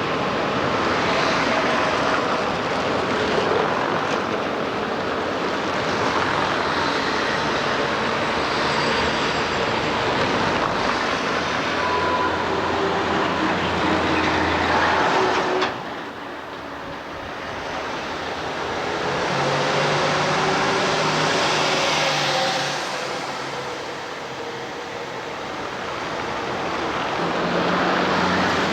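Street traffic, with motor vehicles passing one after another. About halfway through the sound drops off sharply to a quieter level, then swells up again twice as more vehicles pass.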